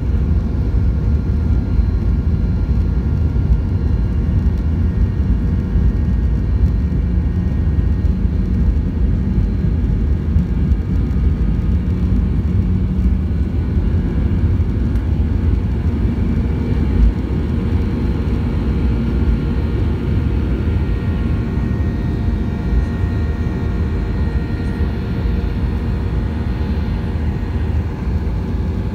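Airliner's jet engines at takeoff thrust with the rumble of the wheels on the runway, heard from inside the passenger cabin during the takeoff roll. The noise stays steady and loud, easing slightly in the later part as the plane lifts off and climbs.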